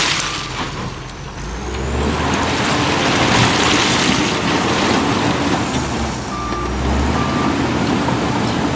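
Heavy diesel earth-moving machinery running under load, with a faint high whine that rises and falls. Two short beeps sound near the end.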